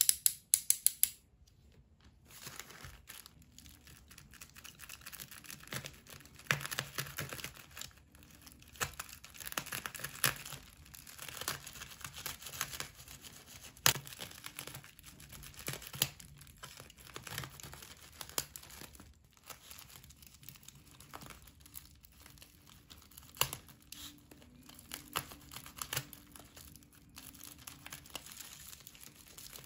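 A snap-off box cutter's blade clicking out several quick times, then the blade slicing and tearing through tape-wrapped black bubble wrap, with the plastic crinkling and rustling throughout.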